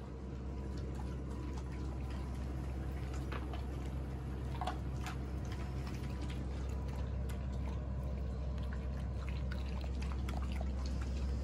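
Dogs eating from stainless steel bowls: scattered small clicks and wet lapping sounds over a steady low hum.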